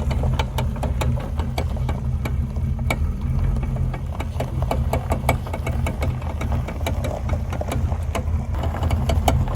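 The rear end of a 1979 Pontiac Trans Am, a 10-bolt 8.5-inch Positraction limited-slip differential, clicking and popping repeatedly and irregularly as the car turns. The V8 is idling steadily underneath. The noise is bad enough to make the tires jump, and the fix is limited-slip lube and additive, which points to the limited-slip clutches chattering.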